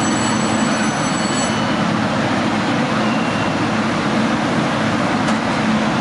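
Beijing Subway train standing at an underground platform: a steady, loud rumble and hum. A steady high-pitched tone sounds over it during the first second and a half, then stops.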